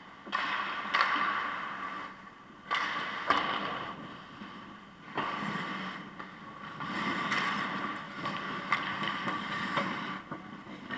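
Ice hockey skate blades scraping and carving on rink ice in repeated sudden bursts that each fade over about a second, with a few sharp clacks from sticks and puck as play crowds the net near the end.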